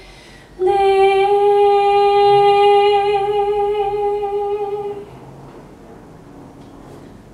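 A solo female soprano singing unaccompanied, holding one long steady note that starts about half a second in and stops about five seconds in.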